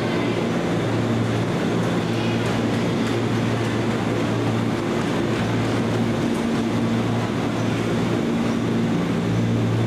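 Former JR East 205 series electric commuter train standing at the platform, its onboard equipment giving a steady hum with a few low held tones that fade in and out.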